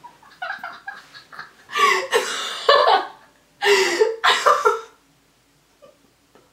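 A woman laughing hard in three loud bursts, falling quiet about five seconds in.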